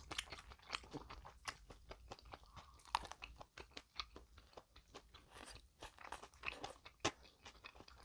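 Close-miked chewing of a sausage salad bread roll: a run of small, irregular crunches and mouth clicks, with a couple of louder crunches around three and seven seconds in.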